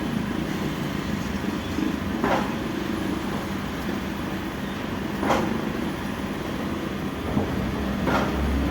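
Backhoe's diesel engine running steadily, with a short sharp noise about every three seconds.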